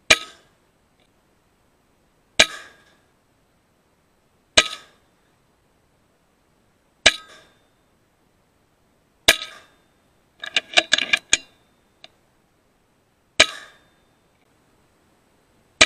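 A string of about seven shots from an FX Impact M3 .22 PCP air rifle, roughly two seconds apart, each a sharp crack with a short metallic ring off the sheet-iron shed. A quick flurry of small clatters comes between two shots, a little after the middle.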